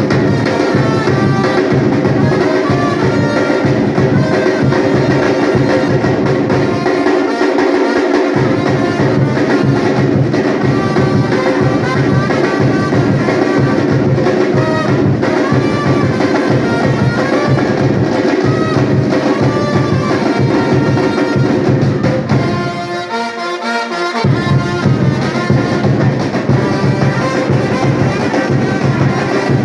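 Live batucada band playing: massed samba drums keep a steady driving rhythm under a brass melody. The low drums drop out briefly about seven seconds in, and again for a moment near the end.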